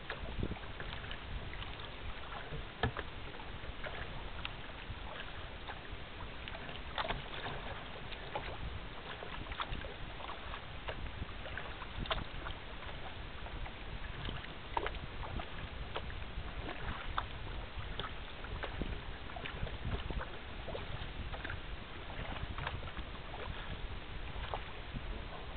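Choppy water lapping and splashing against the hull of a rotomolded Asiak Petrel sea kayak under way. Irregular small splashes sound over a steady rush of water and low wind noise.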